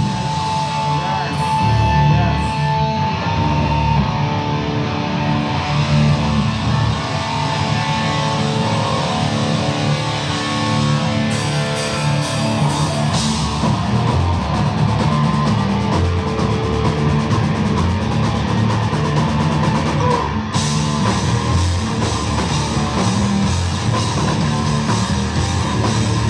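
Live heavy rock band playing: electric guitars, bass and drum kit. A steady high note rings out over the first few seconds, and the cymbals grow brighter about halfway through.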